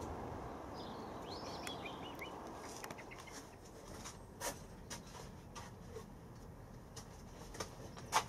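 A bird calls with a few short, high chirping notes in the first couple of seconds. Then come scattered sharp clicks and knocks, the loudest just before the end, as a cardboard parcel is handled.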